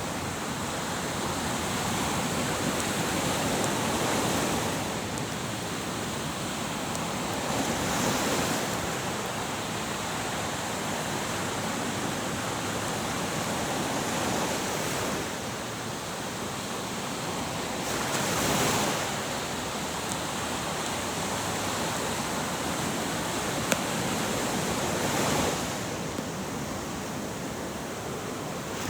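Ocean surf: waves breaking and washing on a shore, the rush swelling and easing every few seconds. One brief click about three-quarters of the way through.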